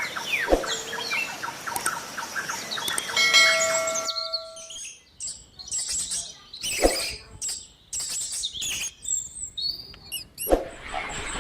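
Birds chirping in a run of short clips with abrupt cuts between them, and a steady ringing tone from about three to five seconds in.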